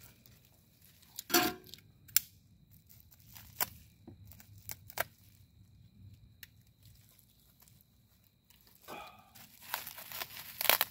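Foam packing wrap being handled and pulled off parts of a new stainless steel camp wood stove: a few sharp crinkles and light clicks, then a longer stretch of crinkling and rustling near the end.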